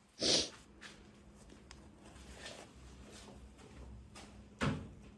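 Tools and engine parts being handled: a short, bright scrape near the start, a sharp knock near the end, and faint clicks between them.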